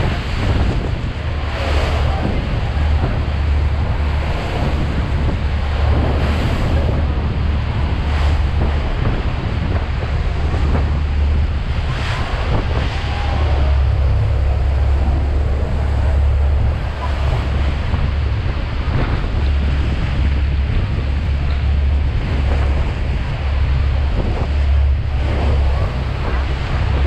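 Steady roar of Niagara Falls' crashing water and spray, heard from close below the falls, with heavy wind buffeting the microphone and a strong low rumble.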